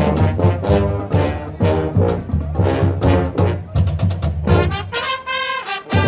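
Brass marching band of trumpets and sousaphones playing march music with a steady beat. The band comes in together right at the start and holds a long chord near the end.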